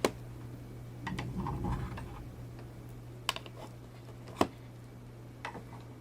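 Sharp clicks and taps of a hard plastic Play-Doh playset being handled, a few single clicks spaced a second or so apart, with a soft rubbing of handling between them. A steady low hum sits underneath.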